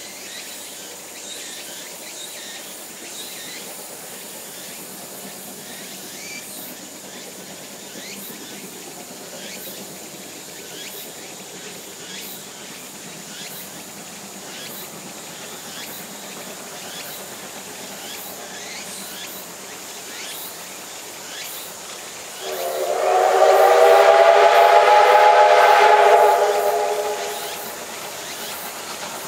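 JNR class C57 steam locomotive C57 1 sounding its steam whistle in one long blast of about four to five seconds, near the end. Before and after it, a steady hiss with the train running.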